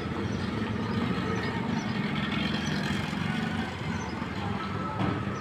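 Street traffic: motorcycle engines running past on a dusty road, with a low engine hum strongest in the middle and a short knock about five seconds in.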